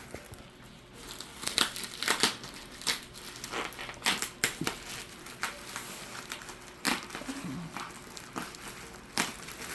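Packing paper being crumpled and torn off a wrapped figure box: irregular rustling with repeated short, sharp crinkles.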